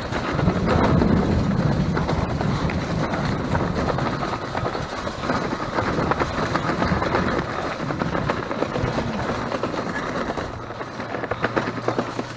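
Bicycle being ridden, rattling and clattering as it rolls over pavement. A low steady hum comes in near the end.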